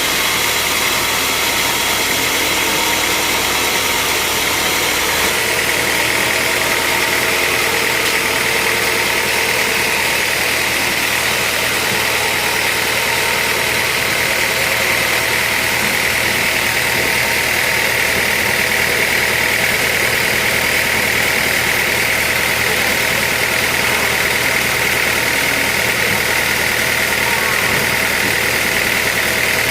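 Sawmill machinery running: a steady mechanical drone with a high whine that grows stronger about five seconds in.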